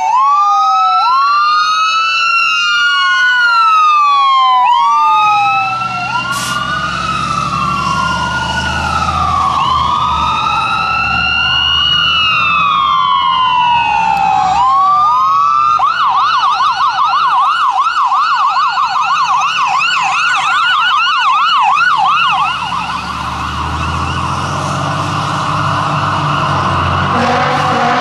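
Electronic sirens of two fire trucks wailing together, their slow rising and falling sweeps overlapping, then switching to a fast yelp just past halfway. Under them is the low rumble of the trucks' diesel engines as they pass.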